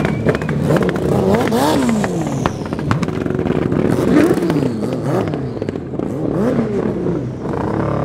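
Sport motorcycle engines revved again and again, their pitch climbing and falling in quick sweeps, with a few sharp pops near the start.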